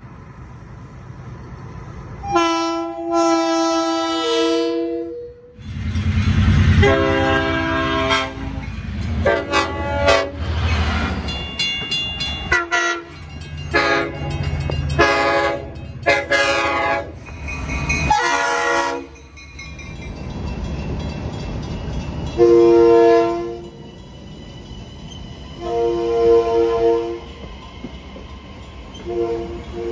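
Train horns sounding a series of held chord blasts: one about two seconds in, a busy run of blasts at shifting pitches over the rumble of a train in the middle, and three shorter blasts near the end.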